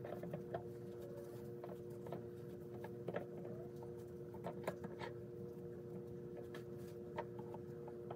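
Faint, scattered light clicks and taps of glass canning jars and a damp paper towel as the jar rims are wiped clean before the lids go on, over a steady low hum.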